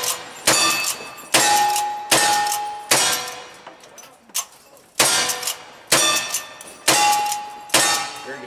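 Rapid gunshots in cowboy action shooting, about one a second with a short pause around the middle. Each shot is followed by the brief ringing clang of a struck steel target.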